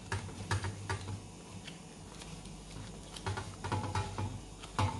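Wilted banana leaf rustling and crinkling under the fingers as it is folded and gathered into a pouch, in short scattered crackles and light taps.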